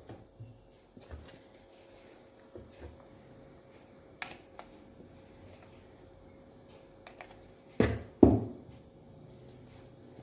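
Kitchen containers and utensils being handled on a counter: scattered light clicks and knocks, then two louder thuds about half a second apart near the end, as things are set down.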